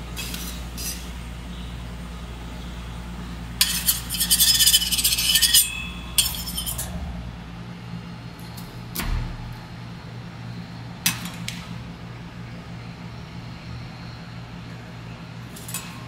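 Metal utensils clinking and scraping, most likely ice cream spatulas working on a steel cold plate. There is a fast, dense flurry of strikes for about two seconds near the middle, with single sharp clicks before and after, over a steady low hum.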